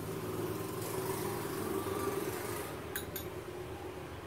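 A steady low mechanical hum, with two short light clicks about three seconds in.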